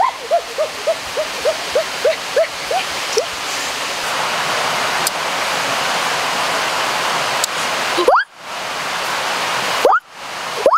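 Water bubbling and plopping. Quick rising plops come about three a second at first, then a steady watery hiss runs for a few seconds. Near the end, single louder rising plops come about a second apart.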